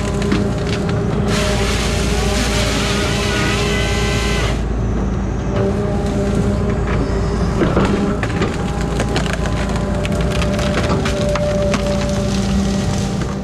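The diesel engine of a grapple-saw machine runs steadily. About a second in, the saw bar cuts through the trunk for roughly three seconds with a loud hiss. After the cut, wood and branches crackle and snap repeatedly as the severed section is handled.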